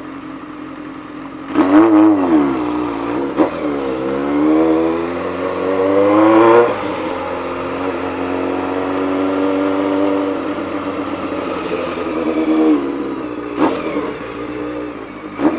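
Honda CBX 750 motorcycle's inline-four engine running on the road. It revs sharply, then climbs in pitch under acceleration and drops at a gear change about six and a half seconds in. It then holds steady before easing off, with a few short blips near the end.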